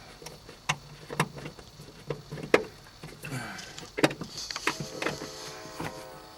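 A small flathead screwdriver prying and tapping at plastic interior trim clips in a car cabin. It gives about six sharp, irregular clicks and knocks, then a short creaking tone near the end.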